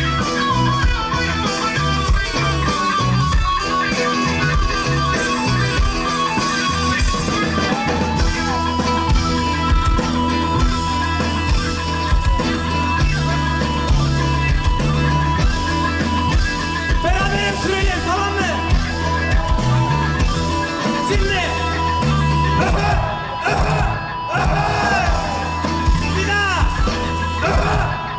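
A live rock band plays an instrumental passage: electric guitars over bass guitar and drum kit. The lead guitar line has bent, gliding notes, more of them in the second half.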